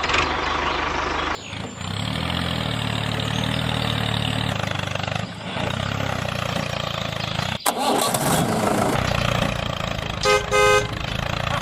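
A vehicle engine running steadily, cut off abruptly twice and resuming. Near the end there are two short horn beeps.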